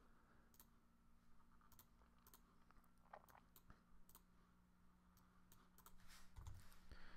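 Near silence with faint, scattered computer mouse clicks, about a dozen, over a faint steady low hum.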